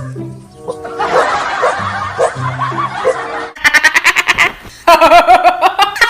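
Background music with held notes, then from about halfway a person laughing hard in rapid, repeated bursts over it.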